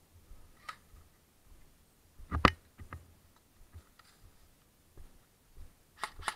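Scattered clicks and knocks from footsteps and carried gear as someone walks on a concrete path, with one sharper knock about two and a half seconds in and a quick cluster of clicks near the end.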